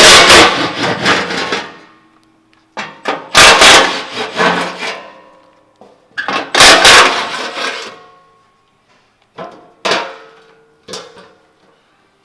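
Tool driving a 12mm socket, loosening the skid plate bolts on a Toyota Tacoma. There are three loud bursts of about two seconds each, then two shorter, fainter ones.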